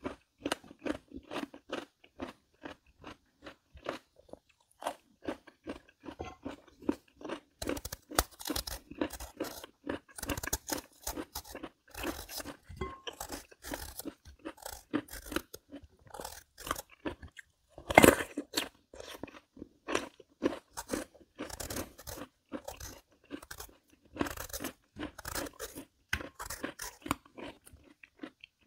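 A person biting and chewing crisp peeled Korean melon (chamoe): a rapid, continuous run of crunches, with one louder crunch about two-thirds of the way through.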